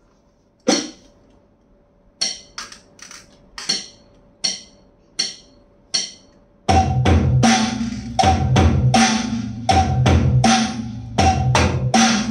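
NUX electronic drum kit being played: a few separate sharp, high hits spaced out over the first six seconds, then about seven seconds in a full groove starts over a backing track with a moving bass line.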